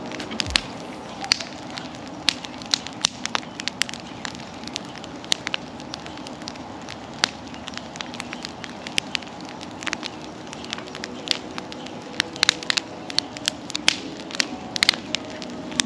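Large wood bonfire crackling, with sharp irregular pops and snaps that come thickest in the last few seconds.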